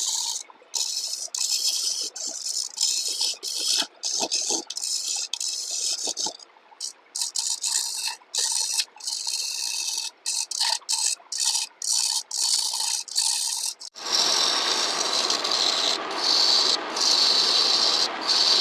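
Lathe tool cutting into a spinning log of pruning wood on a homemade lathe, in rapid short passes with brief breaks. About 14 seconds in it changes to a fuller, steadier cut.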